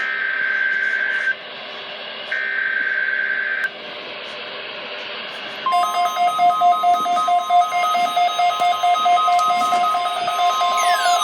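NOAA Weather Radio test broadcast: short buzzing bursts of the digital alert header, each a little over a second long with about a second between them, then about six seconds in the steady warning alarm tone comes on. Receivers set off by the signal beep rapidly along with it, and near the end a tone sweeps down in pitch.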